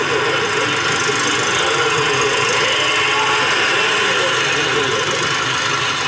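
Vehicle engines running steadily with a wavering pitch, under a heavy high hiss and a squealing edge from a worn videotape recording.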